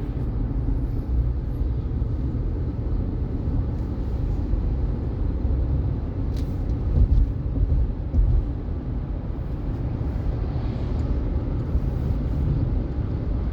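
Road noise inside a moving car: a steady low rumble of tyres and engine, with two brief louder bumps about seven and eight seconds in.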